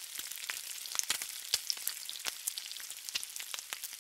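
Bacon frying on a hot griddle: a steady sizzle crowded with sharp pops and crackles of spitting fat.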